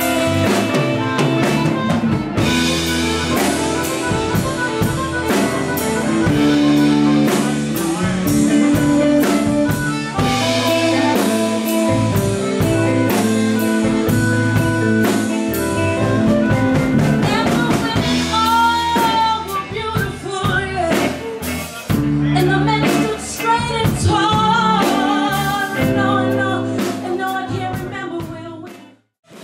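Live blues band playing: electric bass and drum kit under a harmonica lead, with singing in the second half. The music breaks off abruptly just before the end.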